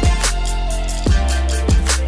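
Background music with a steady beat: deep kick drums that drop in pitch, sharp snare hits and a sustained bass line.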